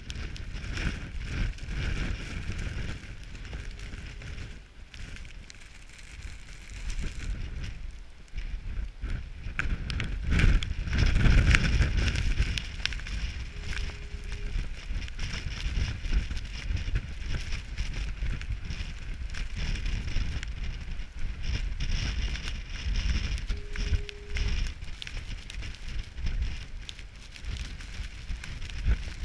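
Storm wind gusting hard against the microphone, a low rumble with a steady hiss above it, strongest around ten to thirteen seconds in. Under the wind, the Brant Point Light foghorn sounds a faint one-second blast every ten seconds, three times.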